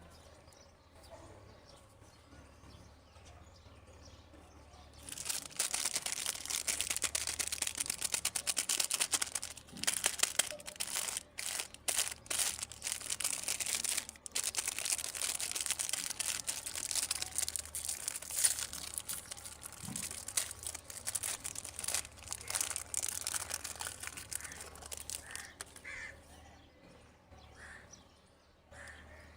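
Plastic candy packaging crinkling as it is handled and opened: a dense crackle that starts about five seconds in and stops a few seconds before the end.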